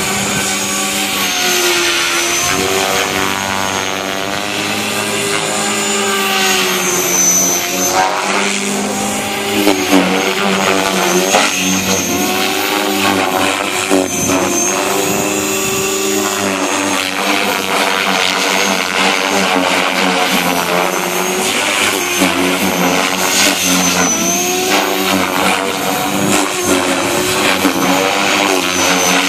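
Align T-Rex 500X electric radio-controlled helicopter flying aerobatics: the rotor and motor whine rises and falls in pitch again and again as the head speed and blade load change through the manoeuvres.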